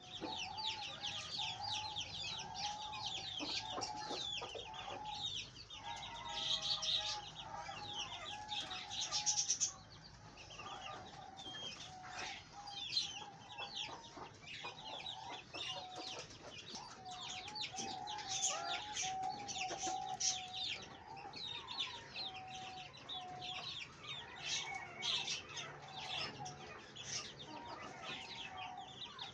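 Hens clucking and giving drawn-out, wavering calls, over a continuous chatter of high-pitched chirps.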